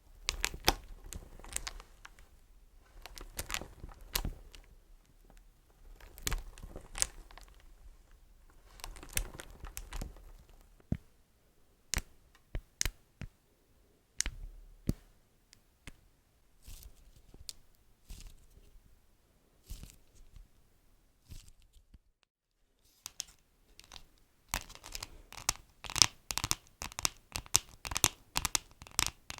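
Beeswax wrap crinkled and pulled apart, giving sticky crackles that come in bunches every second or two, with a few single sharp ticks in between. There is a short silence about two-thirds of the way through, then a dense stretch of crinkling.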